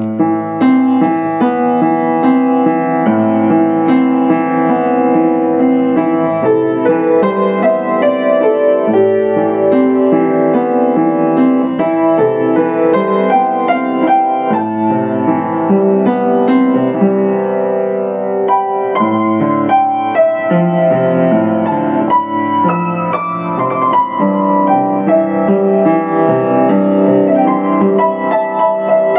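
Yamaha U1J upright piano played solo, several notes sounding at once under a melody, with the notes ringing on. The playing starts suddenly right at the beginning and continues throughout.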